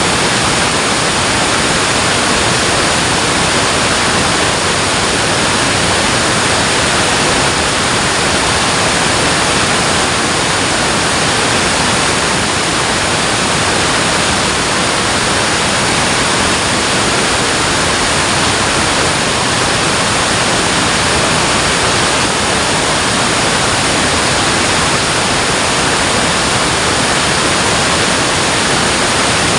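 Water rushing from a dam: a steady, even rush that holds unchanged throughout.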